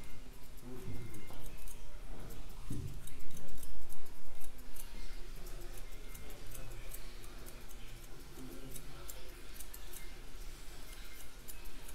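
Thinning shears snipping over a comb, a run of quick, crisp metal snips at irregular intervals, used to soften and smooth the blend of a skin fade.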